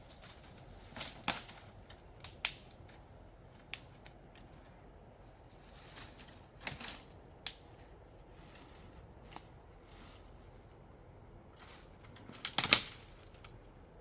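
A dozen or so short, sharp clicks and knocks at irregular intervals, the loudest a quick cluster of them near the end.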